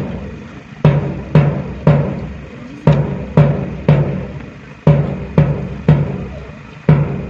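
Bass drum beating a march cadence: three strokes about half a second apart, then a one-beat rest, repeating every two seconds.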